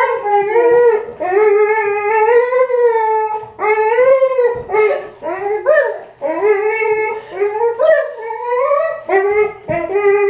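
A dog whining and howling in long, wavering calls, one after another with brief breaks, its pitch sliding up and down.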